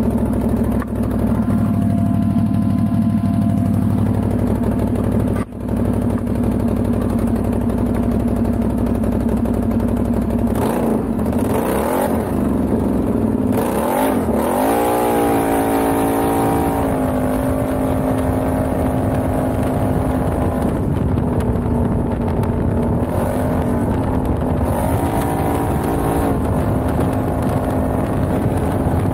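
Can-Am Outlander XMR ATV engine running. It revs up and down in pitch about a third of the way in as the tyres spin on gravel, then holds a steady drone with a few short rises in revs near the end.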